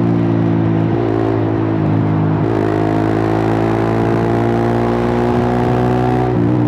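Suzuki GSX-R150's single-cylinder engine through a cut-open exhaust, pulling under steady throttle with its note slowly climbing. It dips briefly about one second in, two and a half seconds in and near the end as it shifts up.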